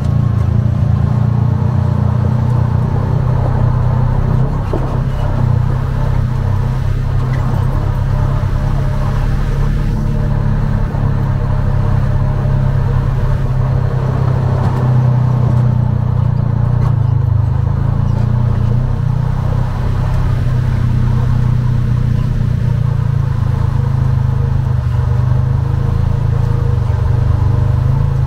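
Polaris RZR side-by-side's engine running steadily while driving along, an even low drone with little change in speed.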